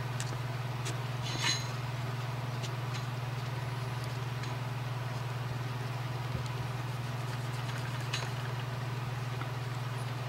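Faint rubbing and small clicks as a cloth pad wipes a Lionel postwar knuckle coupler, the clearest tick about one and a half seconds in, over a steady low hum.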